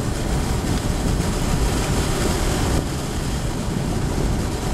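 Wind buffeting the microphone: a steady rushing noise with an uneven low rumble.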